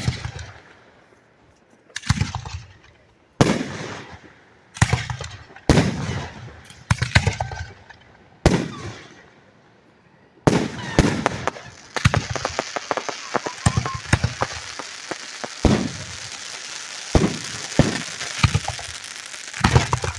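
Aerial firework shells bursting overhead, about nine sharp bangs each followed by a rumbling echo. From about twelve seconds in, a continuous crackling fizz full of rapid pops, with more bangs through it.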